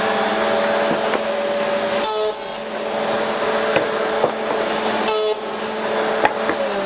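Triton router spinning a biscuit-jointing cutter in a router table, a steady high whine over rushing noise. It cuts briefly into pine twice, about two and five seconds in, then is switched off near the end, its whine falling as it spins down.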